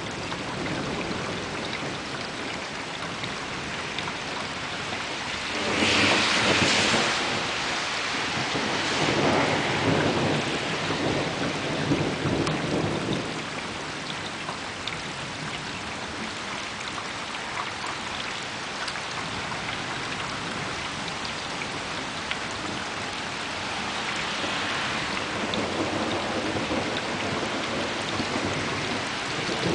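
Thunderstorm at night: rain falling steadily, with thunder rolling. A louder swell of thunder comes about six seconds in and rumbles on for several seconds, and it builds again near the end.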